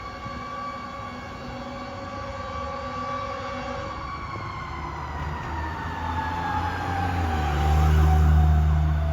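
Fire engine siren holding a steady high note, then sliding slowly down in pitch. Near the end a loud low rumble comes in as the truck passes close by.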